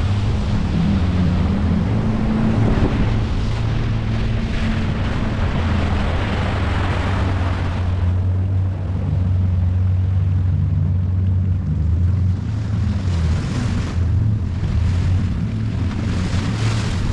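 Mercury 60 outboard motor running steadily, driving a small aluminium boat through rough water. Over it is a rush of water and wind, which eases about eight seconds in and picks up again near the end.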